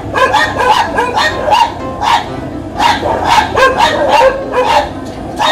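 Staffordshire bull terrier giving short yips and barks, several a second, over background music.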